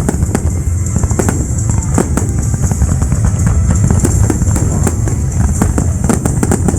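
Fireworks going off: a rapid, irregular run of bangs and crackles over a continuous low rumble.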